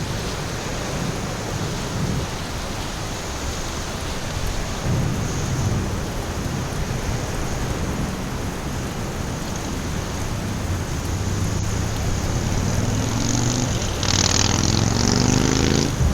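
Steady rain with a low rumble of thunder. Near the end a louder hiss swells up and a rising hum comes in.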